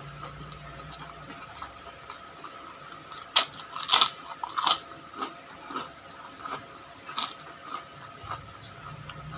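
Close-up eating sounds: a person biting and chewing crunchy fried food, with several loud crunches in the middle and one more near the end, and quieter chewing between.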